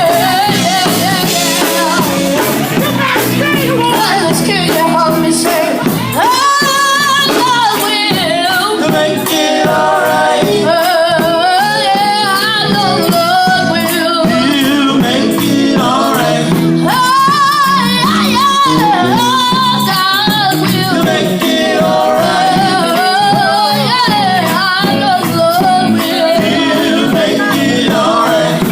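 Gospel vocal group singing with instrumental backing, a lead voice bending and sliding over the steady accompaniment.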